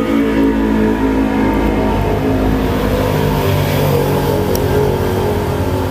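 An engine running steadily, its pitch shifting up and down a few times.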